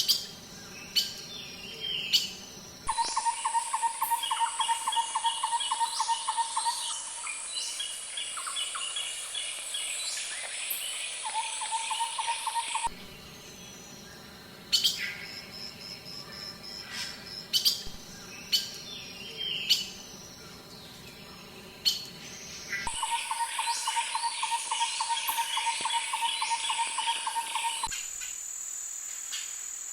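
Forest birds calling: rapid repeated trills, chirps and short sharp calls, over a steady high-pitched insect buzz. The sound changes abruptly several times between spliced recordings.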